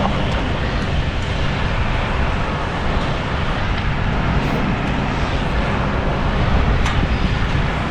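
Steady low rumble of a heavy diesel engine running, a mobile crane working under load.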